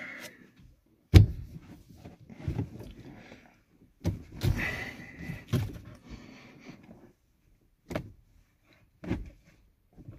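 A string of irregular knocks and thumps, the loudest about a second in, as a Honda Civic steering wheel is tugged and jolted to work it loose from its shaft.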